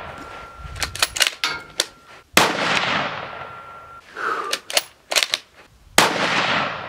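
Two shots from a CZ 600 Trail straight-pull rifle firing 55-grain 5.56, about two and a half and six seconds in, each echoing away over a second or more. Between them come quick metallic clicks of the action being cycled.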